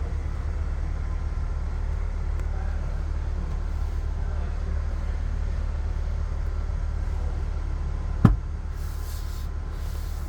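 Steady low rumble of a vehicle, with one sharp knock about eight seconds in.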